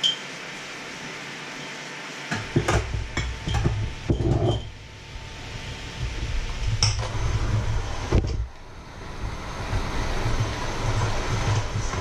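Kitchen utensils, jar and metal bowls clinking and knocking several times, over a steady hiss. A low rumble starts about two seconds in.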